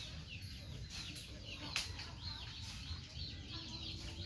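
Chickens clucking in the background, with many short high chirps and one sharp click a little before two seconds in.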